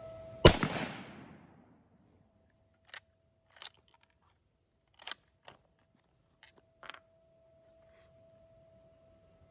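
A single shot from a Carcano bolt-action cavalry carbine about half a second in, a sharp crack that rings out for about a second. Then a run of short metallic clicks from the bolt being worked to chamber the next round.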